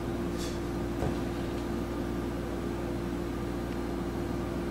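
Room tone: a steady machine hum with one faint held tone, and a light tick about a second in.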